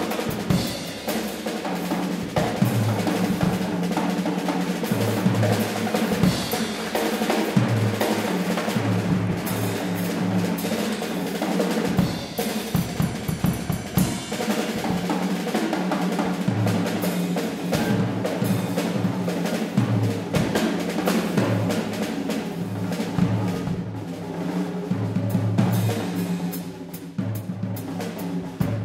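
Live jazz from a quintet playing a blues-based piece, with the drum set to the fore: busy snare, bass drum and rimshot hits over a line of bass notes.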